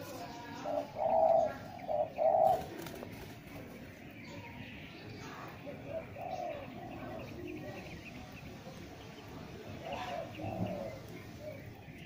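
Spotted doves cooing: a loud phrase of about four low coos between one and two and a half seconds in, then fainter coo phrases around the middle and near the end.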